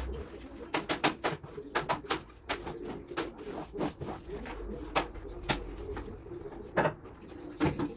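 Short, irregular strokes of a long-handled brush scrubbing a tiled shower floor, with a louder knock near the end. A bird cooing runs under it, in a pigeon's low register.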